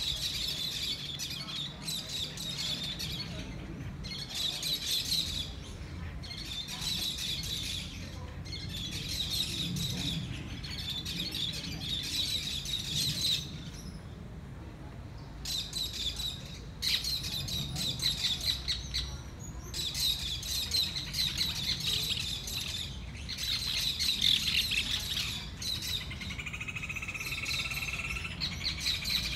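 Birds chirping in trees: bursts of rapid, high chirping a second or two long, repeating with short pauses, over a low background rumble. Near the end a different, steadier call comes in.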